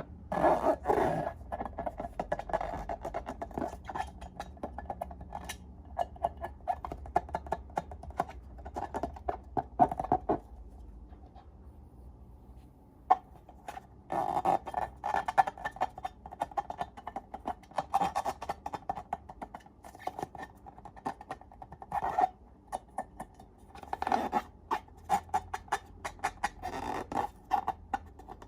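Slime being squished and stretched by hand, making a dense run of sticky clicks and crackles that pauses for a couple of seconds about ten seconds in.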